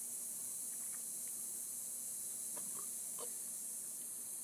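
Mostly quiet steady hiss, with a few faint short sounds from a person gulping soda from a plastic bottle and lowering it.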